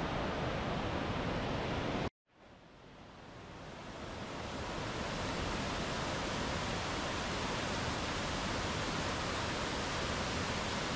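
Waterfall: steady rushing of falling water. It cuts out abruptly about two seconds in, then fades back up over the next few seconds to the same steady level.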